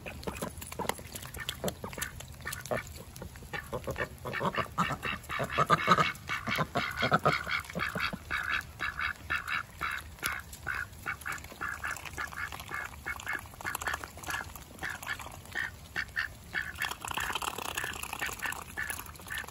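Several Cayuga ducks quacking, a quick run of short calls over and over while they feed together from one bowl, loudest about six seconds in.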